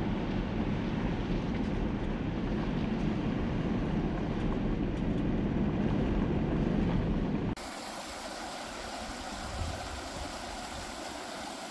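Steady rumble of a truck driving on a rough gravel road, heard from inside the cab. About seven and a half seconds in it cuts off suddenly to a quieter, even rush of a small stream.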